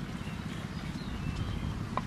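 Knife slicing raw chicken liver on a wooden cutting board, with one sharp tap of the blade on the board near the end, over a steady low rumble of wind on the microphone and faint bird chirps.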